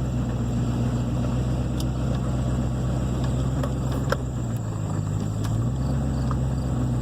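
Old two-wheel-drive Chevrolet C10 pickup heard from inside the cab, driving slowly down a rough farm lane: the engine runs steadily under a rough rattling din, with a few sharp knocks. The driver puts the rattle down to a CV shaft rattling something awful.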